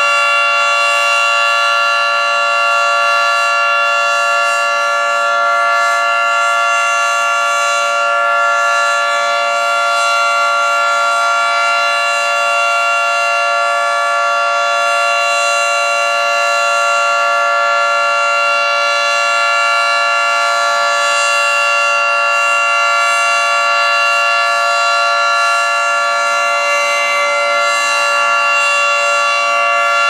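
Federal Signal 3T22 three-tone outdoor warning siren sounding a steady alert for its monthly test: a loud, sustained chord held at constant pitch throughout.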